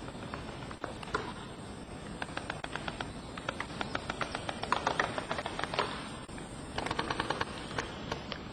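Airsoft guns firing in rapid bursts of sharp clicks, about ten shots a second, several bursts one after another, loudest about halfway through.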